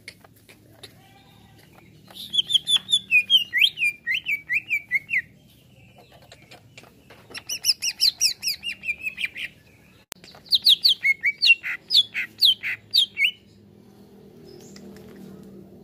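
Male green leafbird (cucak ijo) singing in three bursts of rapid, sliding chirped notes, with short pauses between them.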